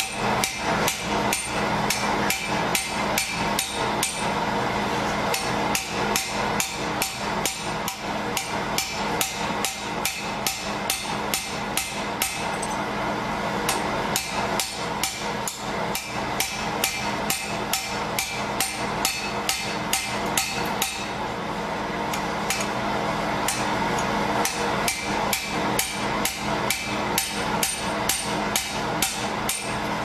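Repeated hammer blows on a Securam safe lock as it is being broken apart, about three sharp strikes a second with a brief lull partway through, over a steady background hum.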